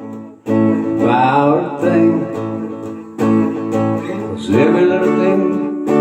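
Music: acoustic guitar strumming with a voice singing over it in two phrases, and a brief pause in the sound just after the start.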